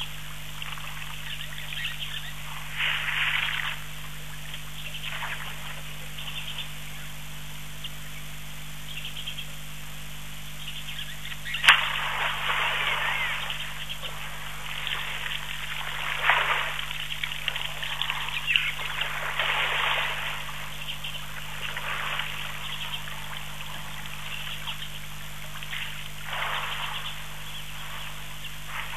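Outdoor ambience: bursts of high chirping animal calls come and go over a steady low hum, with one sharp click about twelve seconds in.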